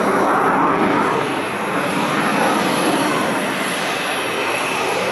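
F-16 fighter jet flying overhead: a loud, steady rushing jet-engine noise that eases slightly about a second and a half in.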